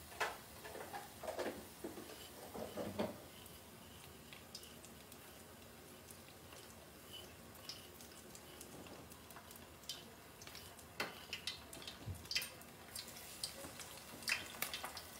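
Scattered light clicks and taps of hands working among bowls of fish, batter and panko breadcrumbs, with a cluster of handling sounds in the first few seconds and more clicks near the end. Underneath is a faint sizzle of smelt frying in a pot of oil.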